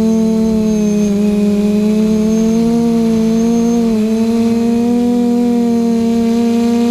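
QAV540G quadcopter's electric motors and propellers running in flight, heard close from the onboard camera: a steady buzzing hum of several close pitches. The pitches shift slightly about a second in and again about four seconds in as the motors change speed.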